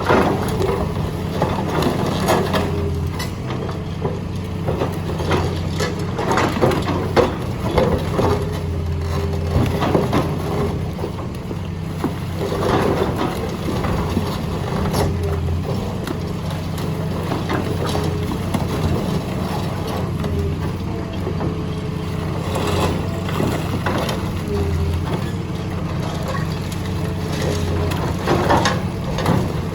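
Hydraulic excavator crushing concrete: the diesel engine runs steadily under a faint whine while the concrete cracks and crunches, with sharp cracks over and over.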